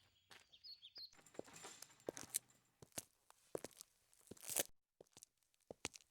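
Footsteps crunching unevenly on a rough, crunchy surface. A rush of noise builds to a peak, then cuts to a moment of dead silence, after which sparser steps start again.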